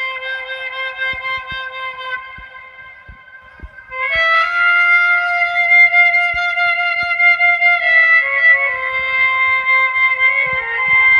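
Music carried by a wind-instrument melody holding long, steady notes. It dips quieter between about two and four seconds in, comes back louder on a new note, and moves to another pitch near eight seconds.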